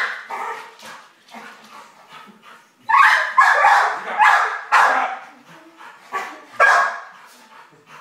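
Pit bull barking: four quick loud barks starting about three seconds in, then one more a little before the end, with fainter sounds between.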